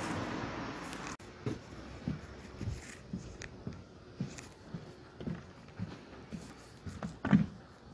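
Steady street noise that cuts off about a second in, then footsteps walking on a snow-dusted sidewalk, about two steps a second, with one louder step near the end.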